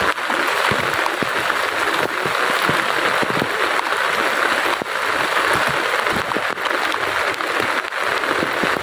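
Heavy rain pouring down: a steady rushing hiss with many close drips and splashes.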